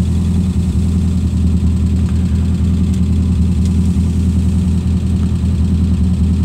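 Vegantune-built Lotus twin-cam four-cylinder engine with twin side-draft Weber carburettors, idling steadily and warm, heard from the driver's seat.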